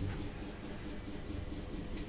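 Electric fan running with a steady hum and hiss that pulses faintly about five times a second.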